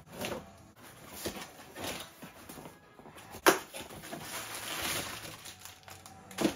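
Cardboard shipping boxes being handled and pulled open: flaps scraping and rustling, with one sharp knock about three and a half seconds in. Near the end, plastic air-pillow packing crinkles as it is pulled out of a box.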